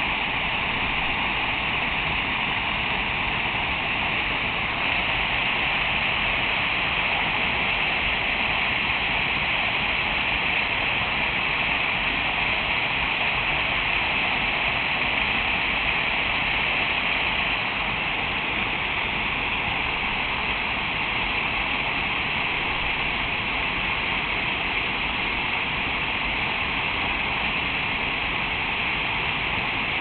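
Waterfall: a steady, unbroken rush of falling water.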